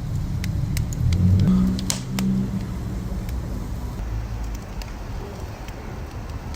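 Wood fire crackling, with scattered sharp pops and snaps over a low rumble that swells about a second in and then eases off.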